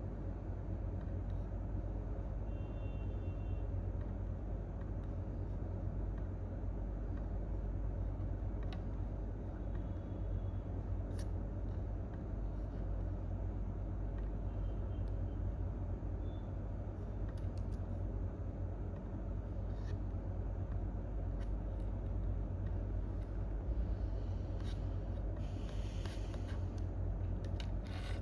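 Steady low rumble of an office's room tone at night, with a few faint isolated clicks and a brief soft rustle near the end, between bursts of typing.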